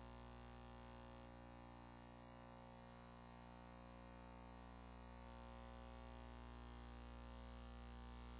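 Steady electrical mains hum with its overtones, unchanging throughout, with no game sound.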